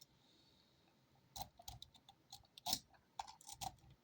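Faint, irregular metallic clicks of a rake pick being worked across the pins of a Holex 085890 50 padlock, starting about a second and a half in, with one louder click near the middle.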